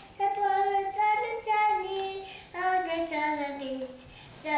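A toddler girl singing an improvised song in a high voice, in short phrases, with a long note sliding downward and a brief pause near the end.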